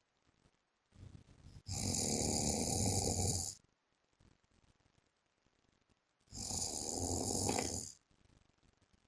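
A sleeping man snoring: two long snores, each about two seconds, the first starting about a second in and the second about six seconds in, with quiet breathing gaps between.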